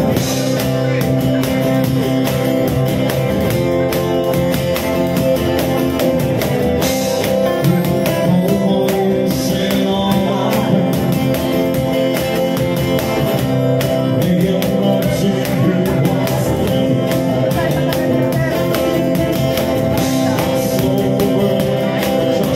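Two acoustic guitars strummed together in a live duo performance, with a man's singing voice joining near the end.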